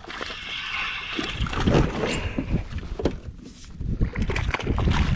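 Water sloshing and irregular knocks and thumps against a fishing kayak while a hooked fish is worked toward the boat.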